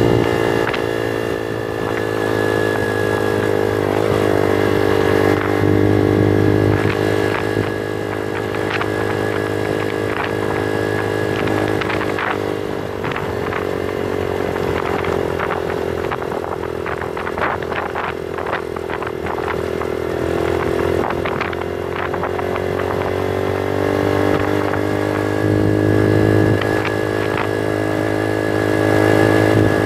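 Bullit Hero 125's single-cylinder 125 cc engine running as the bike rides a loose gravel track. The engine note drops through the middle stretch and picks up again near the end. Through the slower middle stretch comes a run of clattering knocks from the bike jolting over stones.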